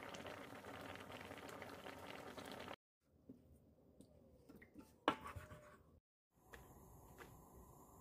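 Soy-and-chili braising liquid simmering in a frying pan, a dense crackly bubbling that cuts off abruptly after almost three seconds. Quieter clips follow: small clicks and one sharp knock about five seconds in, then faint steady background with a couple of light ticks.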